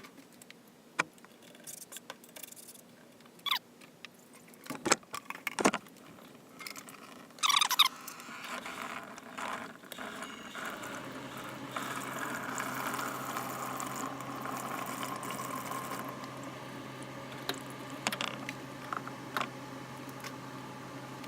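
Clicks and knocks of hands and tools loosening the coupler on a sump pump's PVC discharge pipe. About eight seconds in, a steady rushing starts: the water trapped in the pipe drains out. A low steady hum joins it a few seconds later.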